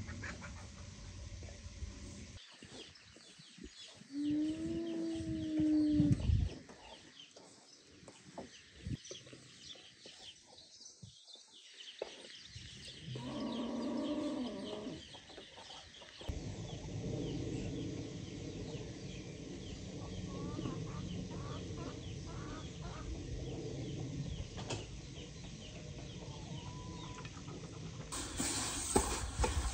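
Chickens calling: a drawn-out, arching call about four seconds in and more calling around thirteen seconds in, over a steady outdoor background with scattered faint clicks.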